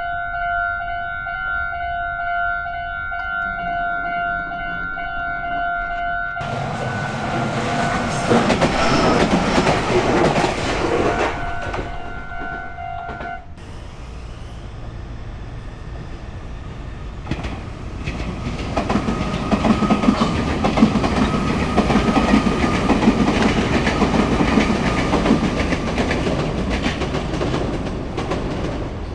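Japanese level-crossing alarm ringing its steady electronic "kan-kan" tone as a Meitetsu train runs over the crossing, joining about six seconds in. The alarm stops about halfway through. The train noise carries on and grows loud again in the second half.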